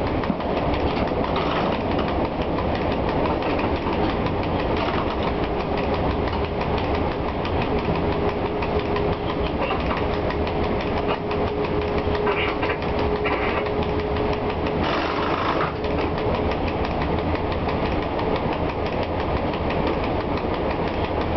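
ET22 electric locomotive under way, heard from inside its cab: a steady rumble and clatter of the wheels running on the rails. A faint steady whine joins for about ten seconds in the middle.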